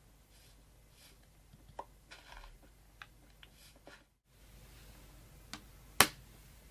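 Light clicks and taps of small objects being handled, with a short rustle about two seconds in, then one sharp click about six seconds in. The sound cuts out completely for a moment about four seconds in.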